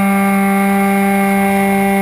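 Motor and propeller of a SkyFly Max RC model plane running at a steady pitch, a loud constant drone heard from a camera mounted on the plane.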